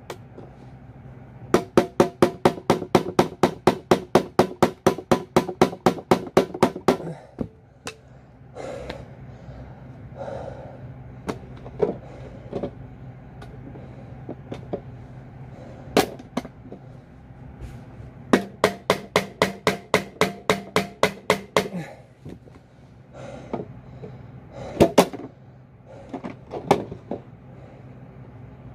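A screwdriver worked against a hard plastic case, giving two runs of rapid sharp clicks, about seven a second, each lasting several seconds. Separate knocks and taps on the plastic come between the runs.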